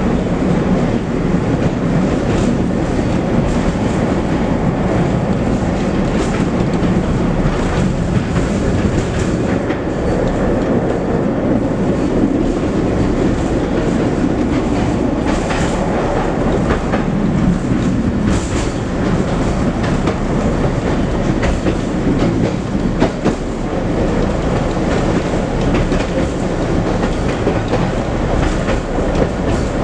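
Tram running along the track, heard from inside the car: a steady rumble of wheels on rails, with scattered clicks and knocks at the rail joints.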